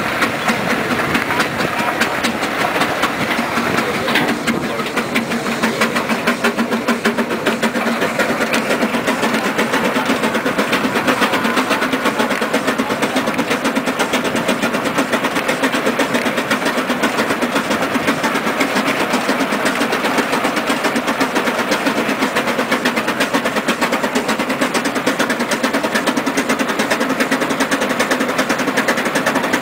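Steam road locomotive under way, its engine beating in a rapid, even rhythm that holds steady throughout.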